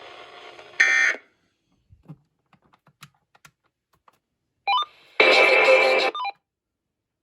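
Emergency Alert System end-of-message data burst: a short, buzzy digital screech about a second in, after a spoken alert ends. Then near silence with a few faint clicks, and near the end a louder electronic tone burst about a second long.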